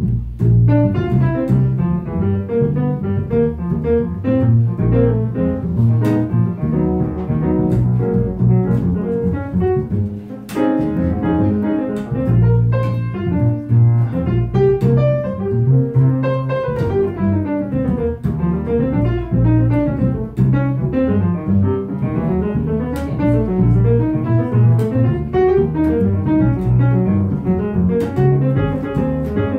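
Live piano and upright bass playing an instrumental passage, without singing.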